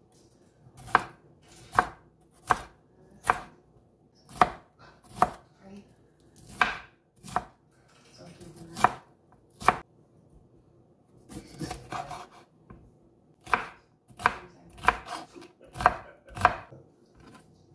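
Chef's knife chopping bell pepper on a wooden cutting board: sharp, even knocks of the blade on the board, about one a second, with a softer, scrappier patch of cutting a little past the middle.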